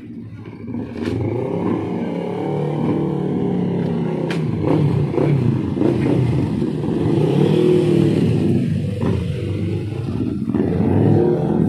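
Several sport motorcycles riding past one after another, their engines running and rising and falling in pitch as they pass. The sound gets louder about a second in.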